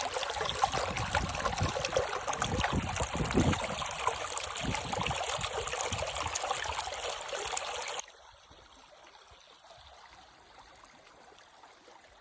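Small creek trickling and gurgling steadily over its bed. About eight seconds in it cuts off abruptly, leaving only a much fainter steady background.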